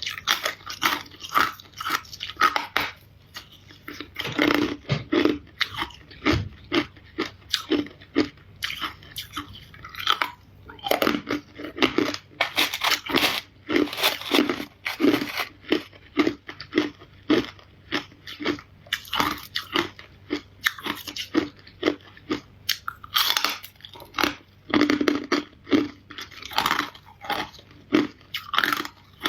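Ice being bitten and chewed close to the microphone: a steady run of sharp crunches, several a second, with a couple of brief pauses between bites.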